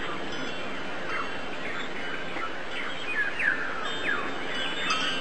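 Birds chirping: many short, quick down-slurred chirps over a steady background hiss.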